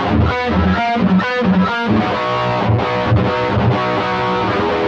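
Electric guitar played through an Xvive T1 Golden Brownie distortion pedal with its drive turned fully up, recorded direct into a sound card. It plays a few quick chopped chords in the first two seconds, then lets distorted chords ring.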